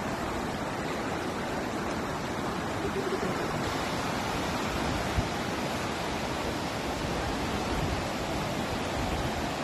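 Steady rush of sea surf on a sandy beach, an even hiss with a rumbling low end. A single brief knock about five seconds in.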